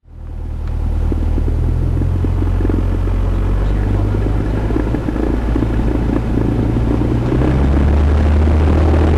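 Cessna 172 light aircraft's piston engine and propeller running steadily, growing slightly louder about seven and a half seconds in.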